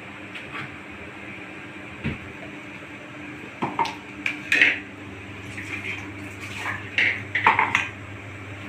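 Stainless steel tumblers and bowls clinking and clattering as they are handled and set down on a kitchen counter, in irregular clusters of metallic knocks with a short ring, the loudest about halfway through.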